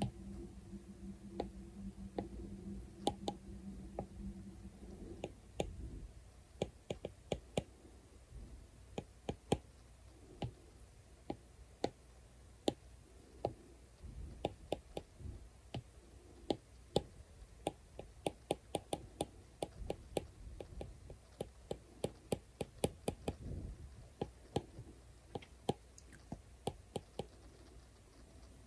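Apple Pencil tip tapping on an iPad's glass screen in quick, irregular dabs while painting, often several clicks in a row. A low steady hum runs under the first few seconds and then stops.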